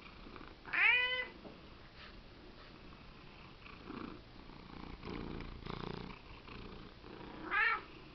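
Tabby cat meowing twice in a whinging way: a loud meow about a second in that rises and then falls in pitch, and a shorter meow near the end.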